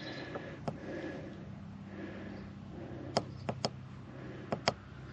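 Sharp plastic clicks of buttons being pressed on a DC power meter to clear and reset its readings: one click near the start, then a quick run of clicks in pairs from about three seconds in, over a faint steady hum.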